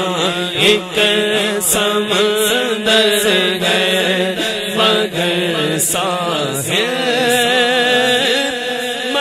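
Naat sung by unaccompanied male voices: a lead voice holding long, sliding notes over a steady drone of backing voices.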